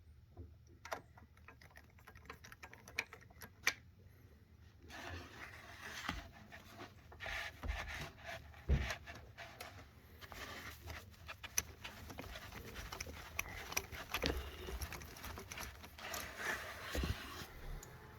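Hand tools working the triple-square bolts out of an engine-mounted high pressure fuel pump: scattered metal clicks and ticks, growing busier with scraping from about five seconds in.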